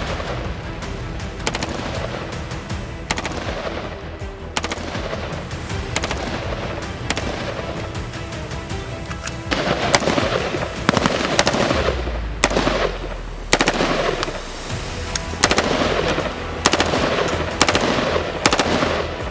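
Colt M4 carbine firing 5.56×45 mm rounds: single shots at first, then rapid strings of shots in the second half. Background music runs under the gunfire.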